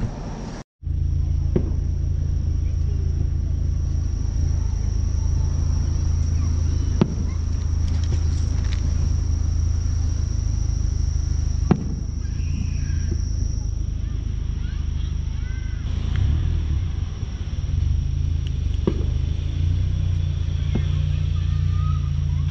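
Distant fireworks go off as single sharp bangs every few seconds, over a steady high-pitched drone of insects and a constant low rumble.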